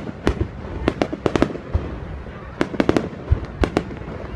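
Fireworks display: a rapid, irregular run of sharp bangs as shells burst, several coming in quick clusters over a low rumbling background.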